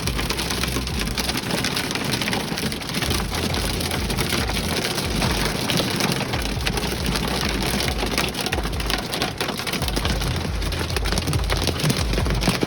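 Hail falling with very heavy rain: a dense, steady clatter of many hailstones striking among the downpour, with a low rumble coming and going underneath.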